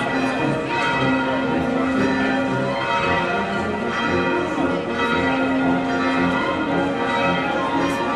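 Church bells ringing, many bell tones sounding over one another in a steady peal.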